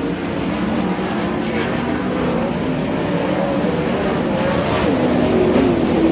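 Several dirt-track race car engines running together around the oval, their pitches rising and falling as the cars go down the straights and through the turns.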